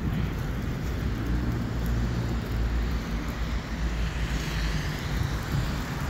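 Steady low rumble of street traffic in slushy snow, with a fainter hiss joining in about four seconds in.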